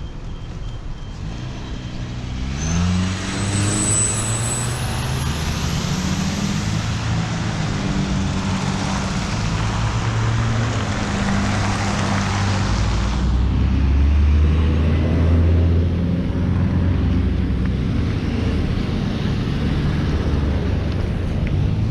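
Street traffic going by. About two seconds in, a vehicle's engine rises in pitch as it pulls away, and the hiss of passing tyres swells and then fades about thirteen seconds in. A deeper engine drone carries on to the end.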